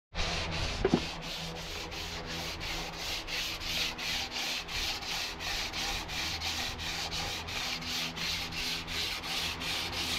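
Hand sanding of white body filler on a truck's repaired cab corner panel with a sanding block, in quick back-and-forth strokes at about four a second. A single knock sounds about a second in.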